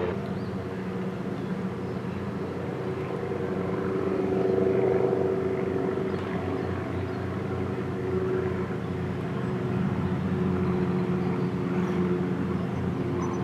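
Airplane climbing out after take-off and passing overhead: a steady engine drone that swells about four or five seconds in and again later on.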